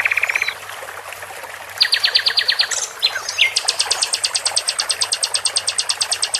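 Songbird trills used as masteran tutor song: after a brief pause, a fast buzzy trill of rapidly repeated notes about two seconds in, a short chirp, then a long, very fast, high trill from about three and a half seconds on.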